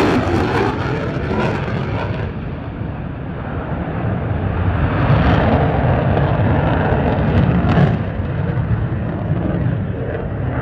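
F-35A Lightning II's single Pratt & Whitney F135 turbofan in afterburner, a loud jet roar. Its sharp top end fades after about two seconds, then the roar swells again with a spell of crackle about eight seconds in.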